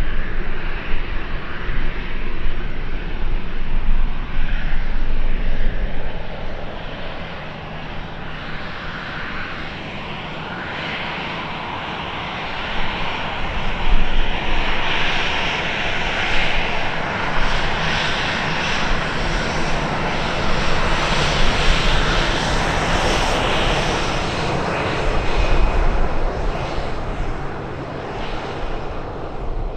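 Luxair Boeing 737's CFM56 turbofan jet engines running at taxi power as the airliner rolls past. A steady jet whine and hiss with an uneven low rumble, the whine growing louder about halfway through as the aircraft comes closest, then easing near the end as it turns away.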